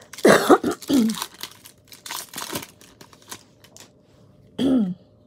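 A baseball card pack's wrapper being torn open and crinkled, loudest in the first second, then lighter rustling as the stack of cards is worked out of it.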